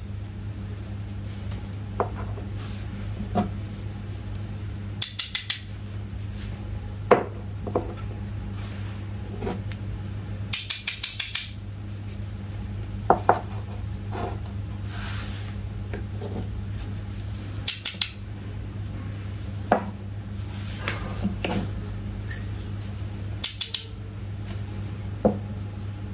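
Small unglazed clay toy pots and cups clinking against each other and clacking as they are set down, in short clusters of light taps every couple of seconds, over a steady low hum.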